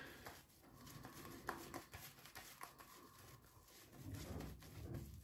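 Faint, scratchy swishing of a boar-bristle shaving brush working a thin layer of lather over stubbled skin, in soft uneven strokes with quiet gaps between them. Little soap is left, so this is a light final touch-up pass.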